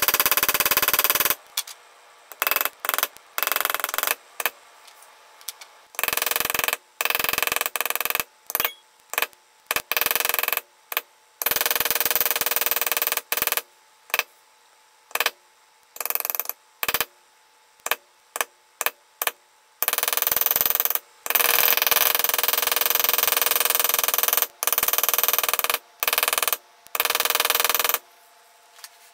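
Metal leather-stamping tool struck rapidly with a mallet while tooling carved leather, in runs of tapping that start and stop abruptly, with short pauses between; the longest run is in the second half.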